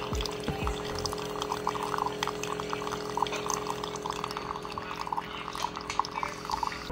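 Single-serve coffee maker pouring a thin stream of coffee into a mug, with many small splashing ticks over a steady machine hum.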